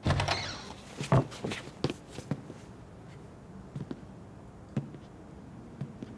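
A short falling creak at the start, then scattered knocks and sparse footsteps on a wooden floor.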